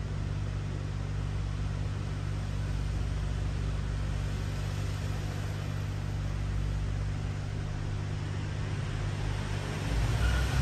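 Steady background hum with a constant hiss, and a low rumble that grows louder near the end.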